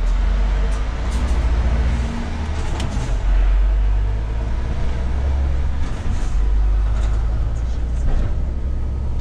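Scania S500 truck engine heard from inside the cab, a steady low drone as the truck pulls away through a toll lane, with a few light clicks and knocks from the cab.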